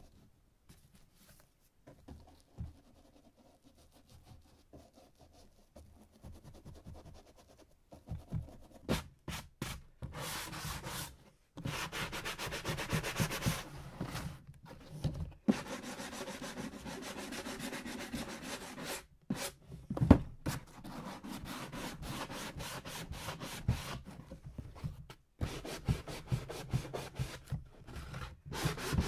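Rapid, repeated hand rubbing or sanding strokes against a surface. They start faint and sparse, build up about eight seconds in, and run almost continuously from about a dozen seconds in, with brief pauses and one sharp click about twenty seconds in.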